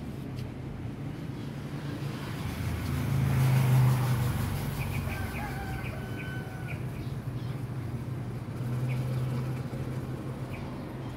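Street traffic: a low vehicle engine hum that swells as vehicles pass, about three seconds in and again near nine seconds. A bird chirps a few short notes in the middle.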